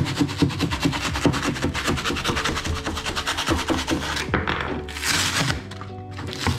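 A knife cutting through cured spray-foam insulation in quick scraping strokes, which stop a little past four seconds in and are followed by a short scrape as the cut piece is pulled away. Soft background music runs underneath.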